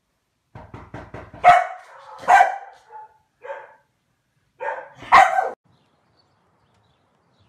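A Komondor, a large corded-coat dog, barking in several short barks, each about a second apart, after a few quick light taps.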